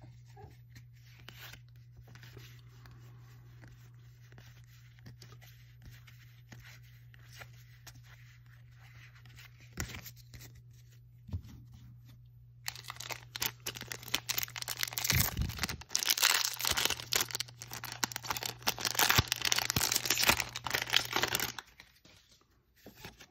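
Foil wrapper of a Magic: The Gathering Ikoria draft booster pack being torn open and crinkled: a loud crackling that starts about halfway through and lasts about nine seconds. Before it there is only a low steady hum and a couple of small clicks.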